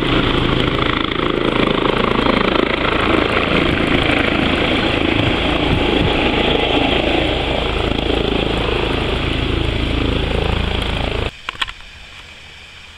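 Eurocopter EC135 air-ambulance helicopter hovering low, its rotor and turbines running loud and steady. The sound cuts off abruptly about eleven seconds in, leaving faint outdoor background with a few clicks.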